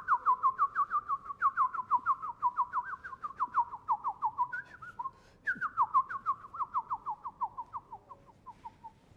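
A bird-like whistled call: a fast run of clear notes, each sliding down, the whole run sinking gradually in pitch. It breaks off about halfway for a brief warble, then repeats and trails away near the end.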